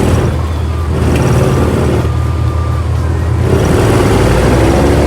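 Cessna 172N's four-cylinder Lycoming engine and propeller droning steadily as heard from inside the cockpit, with a slight change in the engine note about three and a half seconds in.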